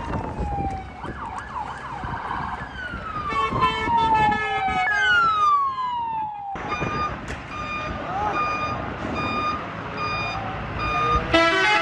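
Emergency vehicle sirens winding down, several falling wails overlapping. After a sudden cut about six and a half seconds in, a vehicle's reversing alarm beeps at an even pace.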